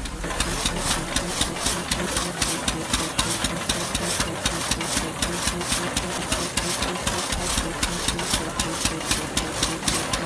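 An engine running steadily with a rapid, even pulse of about five beats a second.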